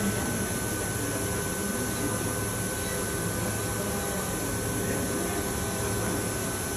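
MECOF M5 Agile bed milling machine running, a steady mechanical hum with a thin, high, steady whine over it.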